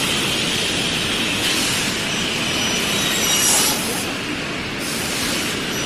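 CNC computer panel saw cutting through a stack of board sheets: a steady, loud saw noise with a thin high whine. It grows brighter and louder for about half a second around three and a half seconds in.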